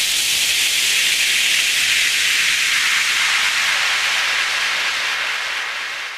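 A long, steady hiss that slowly falls in pitch and fades out near the end.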